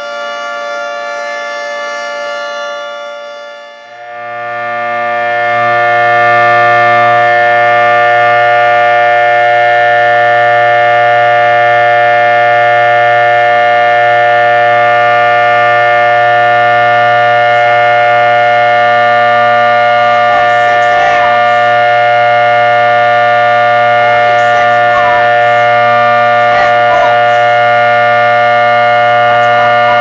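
For the first few seconds a full-size multi-horn outdoor warning siren sounds a steady chord. About four seconds in, a 3D-printed miniature 2T22 tornado siren, a brushed-motor rotor driving 22 horns, spins up over about two seconds and holds a loud, steady, chord-like tone: the steady tornado-drill signal at full voltage.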